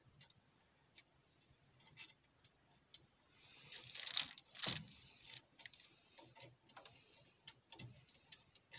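Faint small clicks and taps of gloved fingers working a CO2 laser's metal mirror mount, turning its retaining cap by hand to loosen it, with a short rustling scrape about four seconds in.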